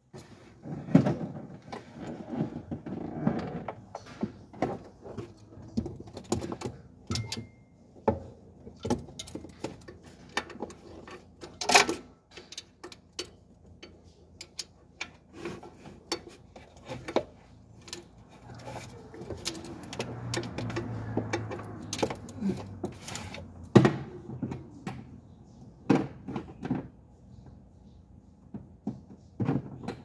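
Irregular clinks, clanks and knocks of hand tools and metal parts being handled, with a few sharper strikes standing out, such as one about twelve seconds in and another near twenty-four seconds.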